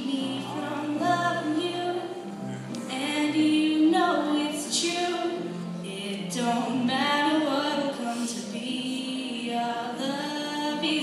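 A 12-year-old girl singing solo, holding and bending long melodic notes, over instrumental accompaniment.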